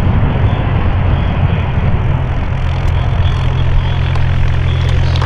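F-35B Lightning II's F135 jet engine and lift fan running loud in STOVL mode as the jet hovers and lets down vertically onto the runway. About two seconds in, the low drone under the roar turns steady.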